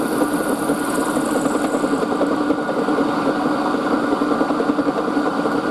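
Milling machine running with its end mill cutting a small brass block held in the vise: a steady motor hum with a fast fluttering cutting sound.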